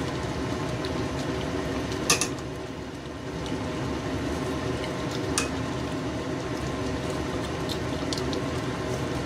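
Pot of seafood porridge simmering on the stove under a steady hum, while a steel ladle stirs in the steel stockpot and knocks against it, two sharp clinks about two and five seconds in.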